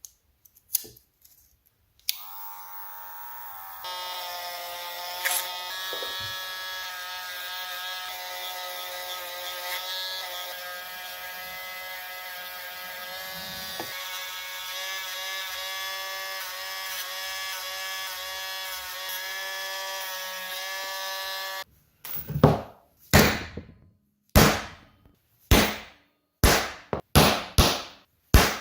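A small electric power tool's motor spins up and runs at a steady high-pitched whine for about twenty seconds as it works the Kydex sheath, then stops suddenly. This is followed by a quick series of sharp hammer knocks, as when setting the sheath's rivets.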